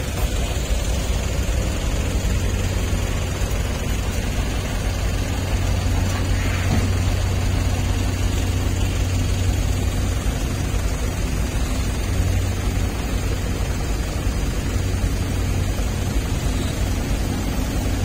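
An engine idling steadily: a constant low hum with no changes in speed.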